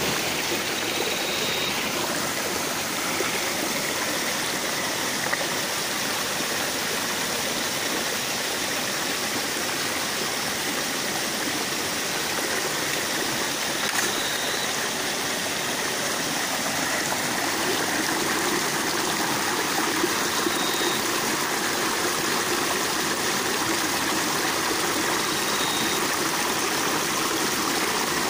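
A rocky stream running steadily, water rushing over and between stones close by.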